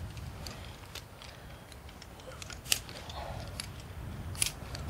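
Metal climbing hardware, carabiners and quickdraws on a climber's harness, clicking and clinking: two sharp clicks, one a little under three seconds in and one near the end, over a steady low rumble.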